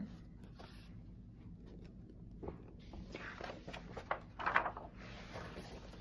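Soft rustling of a picture book's paper page being handled and turned: a few brief scrapes between about two and a half and five seconds in, the loudest near four and a half seconds.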